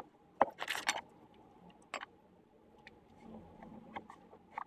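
Lino cutter's gouge scraping through the rough side of a lino block: a few short, scratchy cuts, the longest about half a second near the start, another at about two seconds, then only faint ticks.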